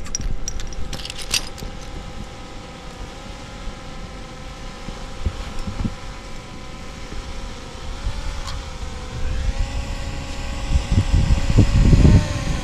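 Quadcopter drone flying close by: a steady propeller whine that wavers in pitch about eight seconds in and then rises slightly. Wind rumbles on the microphone, gusting loudest near the end.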